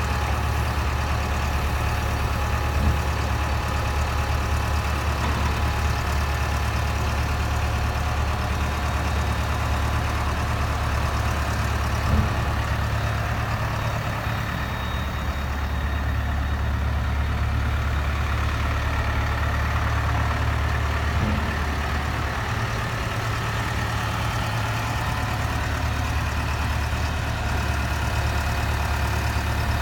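JCB JS81 excavator's diesel engine running steadily at a low, even speed, with a few faint knocks about a third and two-thirds of the way through.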